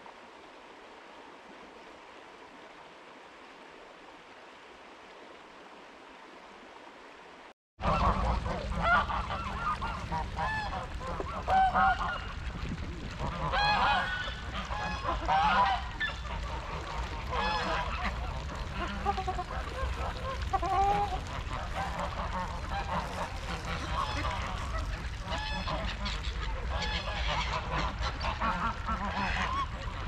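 A shallow stream running steadily over stones; about eight seconds in it cuts off and gives way to a flock of waterfowl on a river calling over and over, many calls overlapping, above a steady low rumble.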